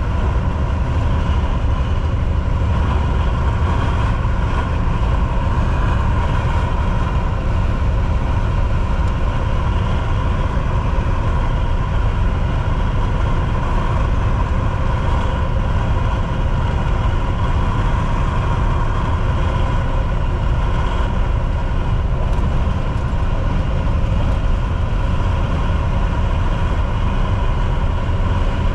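Volvo VNL 760 semi truck on the move: the diesel engine running steadily at cruise under a constant wash of tyre and road noise, with no change in pitch or level.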